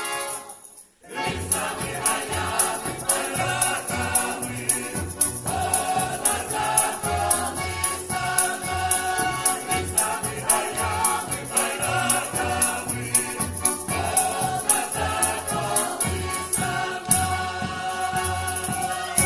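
Ukrainian folk-ensemble choir singing in harmony over a steady rhythmic accompaniment with jingling percussion. A held chord breaks off at the start, and the song picks up again about a second in at a steady beat.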